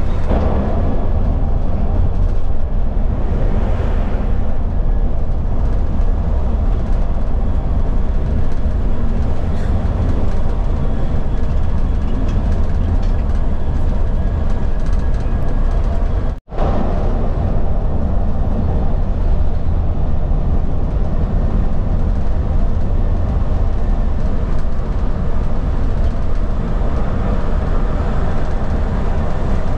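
Cab noise of a KSRTC Olectra electric bus driving at highway speed: a steady, loud low rumble of tyres and road. The sound drops out for a split second about halfway through.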